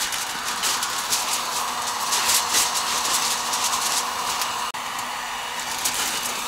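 Harbor Freight 1500-watt heat gun blowing steadily, heating PVC conduit under an aluminium-foil heat shield to soften it for bending, with irregular crinkling of the foil as it is handled.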